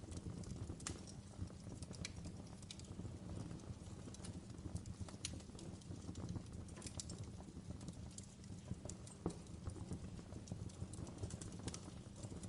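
Fireplace fire crackling: irregular sharp pops and snaps over a low steady rumble.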